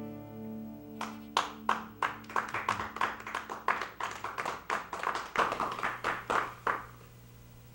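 The last acoustic guitar chord of a song rings out and fades, while sparse hand-clapping starts about a second in: around twenty separate, distinct claps from a few people, stopping near the end.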